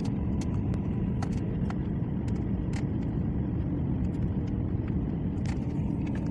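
Airliner cabin noise during landing: a steady, heavy low rumble with a faint steady hum above it and scattered sharp clicks and rattles.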